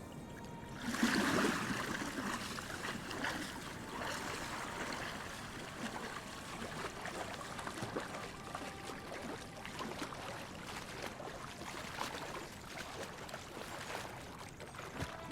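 Running, trickling water: a steady rushing that comes in about a second in and carries on unevenly.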